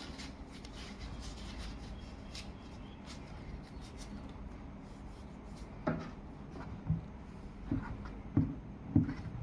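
Faint rubbing and scratching of hands and a small tool working the glued edge of a speaker cone's surround against its frame. Several soft knocks of handling come in the second half.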